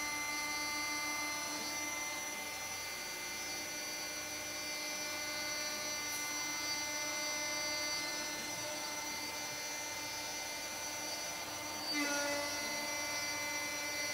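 CNC router's VFD spindle whining steadily while an end mill cuts pockets in metal sheet, with a slight jump in level and pitch about twelve seconds in.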